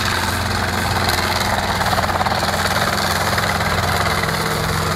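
Light helicopter flying low and maneuvering near the ground, its rotor and engine running steadily with a fast, even rotor beat.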